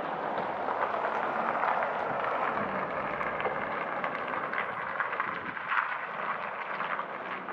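Street ambience recorded on the move: a steady rushing noise, a little stronger in the first couple of seconds, with scattered light taps and clicks from about three seconds on.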